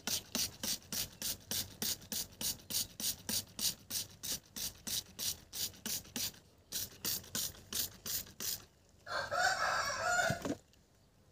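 Hand trigger spray bottle misting water onto a bonsai's growing medium: quick, even squirts, about three a second, with a brief pause and stopping a little after eight seconds. A louder sound follows, lasting about a second and a half.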